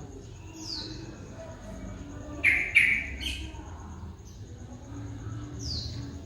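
Bird calls: two loud, sharp chirps about two and a half seconds in, and a couple of short, high, falling whistles. Beneath them are faint, low, repeated coos of a spotted dove.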